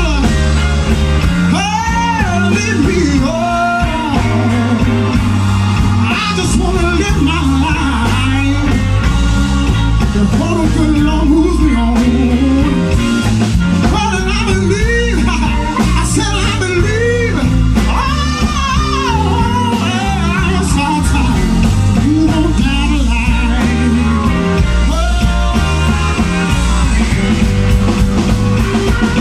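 Live electric blues: a male singer sings over electric guitar and drums.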